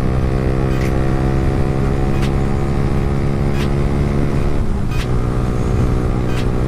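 Yamaha R15 V3's single-cylinder engine running at steady revs while riding; its note dips and wavers briefly near five seconds in, as at a throttle change or gear shift. Sharp ticks recur about every second and a half.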